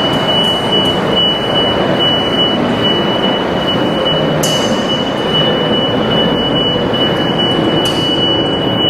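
Haulotte Compact 14 scissor lift lowering its platform, a steady high-pitched descent alarm tone sounding over the even rushing noise of the descent.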